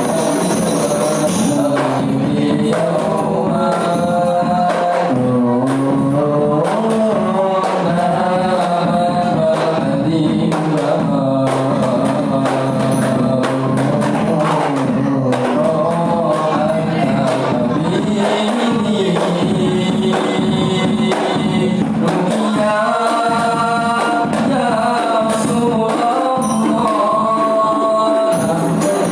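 Rebana frame drums beaten in a steady, busy rhythm with jingles, under voices singing a melody together.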